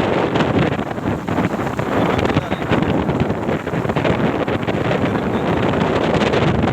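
Wind buffeting the microphone: a loud, steady, gusty rumble.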